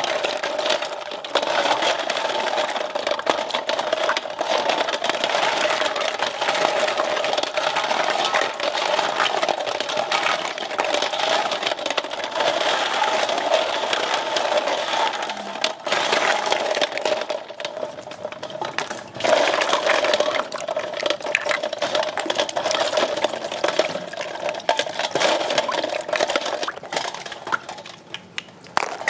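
Snail shells clattering and grinding against each other and the metal basin as hands scrub them in water, with water sloshing; a dense, steady rattle that eases briefly about two-thirds of the way through and again near the end.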